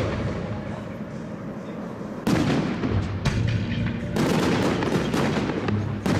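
Aerial firework shells bursting: several sharp bangs, the first about two seconds in after a quieter stretch, then more over the following seconds as the stars break in the sky.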